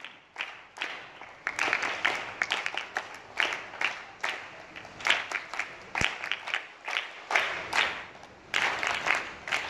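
A group of girls clapping their hands in a loose, uneven round of applause. It eases off briefly about seven seconds in, then picks up again near the end.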